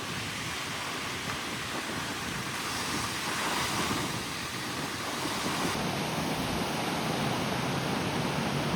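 Ocean surf on the beach, a steady wash of waves, with wind rumbling on the microphone that grows stronger near the end.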